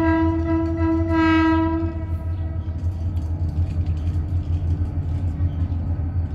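A train horn sounding one long, steady note, swelling slightly before it stops about two seconds in, over a steady low rumble.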